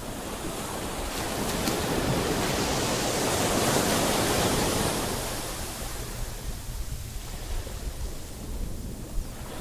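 Ocean surf at the shore: a wave swells, breaks and washes in, loudest about four seconds in, then fades back to a steady hiss.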